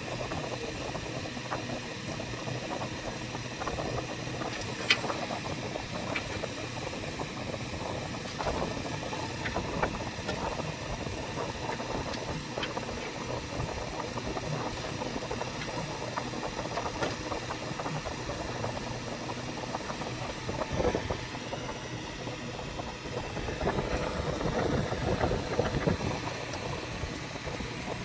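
Small clicks and rustles of thin wires and plastic front-panel connectors being handled and pushed onto a PC motherboard's pin header, over a steady background hum and hiss. One sharper click comes about five seconds in.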